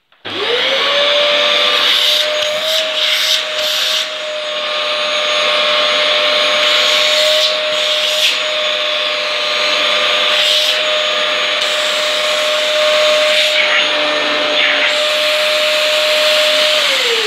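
Dyson DC14 upright vacuum cleaner with a newly fitted motor switched on: the motor spins up quickly to a steady high whine over rushing airflow and runs steadily, then starts to wind down near the end, its whine falling.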